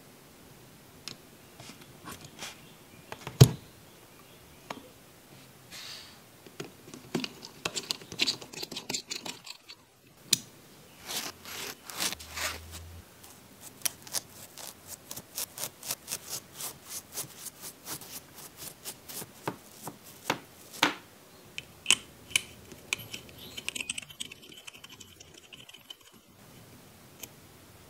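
Small metal parts of a Toyan FS-L400 miniature engine being handled and fitted by hand: light clicks, taps and rustles, with one sharper tap about three seconds in and a quick run of clicks midway through.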